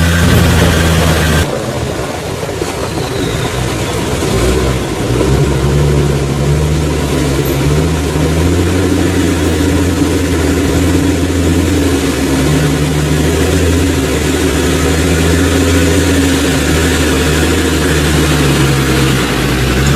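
Off-road 4x4's engine running at low revs, its pitch rising and falling a little with the throttle.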